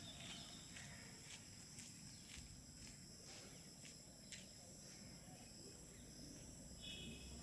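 Near silence: faint outdoor ambience with a steady high hum and faint short ticks about twice a second, one a little louder about four seconds in.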